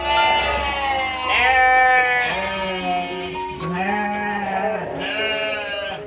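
About five long, wavering bleats from sheep or goats, one after another, each lasting about a second, over steady background music.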